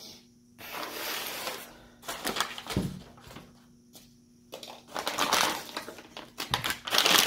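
Brown packing paper rustling and crinkling in several rounds as it is pulled from around shotgun barrels in a cardboard box, loudest near the end. A low thump comes about three seconds in.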